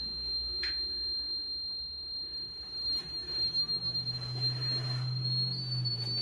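A steady, high-pitched electronic whine, one unbroken pure tone that edges slightly higher near the end; a low hum joins it over the second half.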